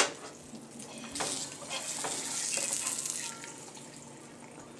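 A sharp click, then food frying and sizzling, the hiss swelling for about two seconds and then dying down.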